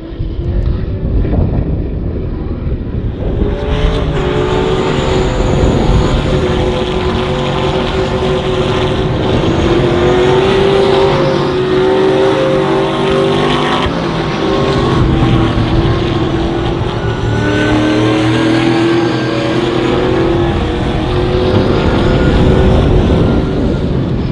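Several Trans Am V8 race cars running at racing speed together, their engine notes rising and falling as they accelerate and change gear. The sound gets fuller and louder about four seconds in.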